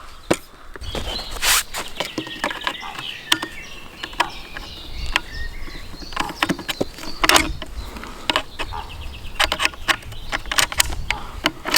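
Outdoor ambience of birds chirping, with a low rumble and scattered sharp clicks and knocks.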